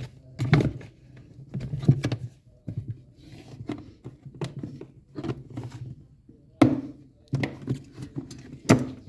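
Irregular knocks and thunks, a few sharper ones among them, over a low steady hum.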